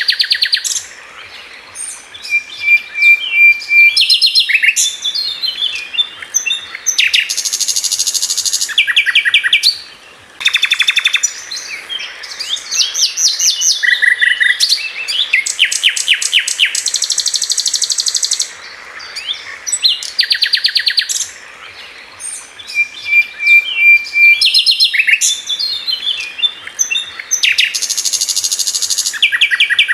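Songbirds chirping and trilling in quick, high bursts, with short pauses between phrases. The same sequence of calls seems to repeat about twenty seconds on, like a looped birdsong track.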